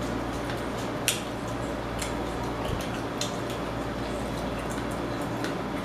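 Close-up eating sounds of fried chicken being chewed, with scattered short, sharp mouth clicks over a steady low hum.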